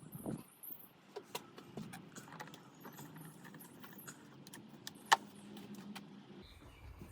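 Scattered light clicks and rattles of small hard objects being handled, with one sharp click about five seconds in, over a faint low hum that stops near the end.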